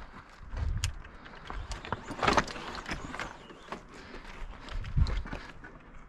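Irregular footsteps and knocks on rocky ground, with the mountain e-bike clattering as it is pushed over stones; a few heavier thumps stand out, about a second, two seconds and five seconds in.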